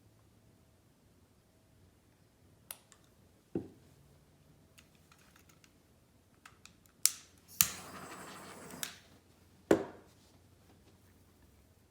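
Scattered clicks and knocks of painting supplies being handled and set down, with a rough noise lasting about a second just after the loudest knock, a little past the middle.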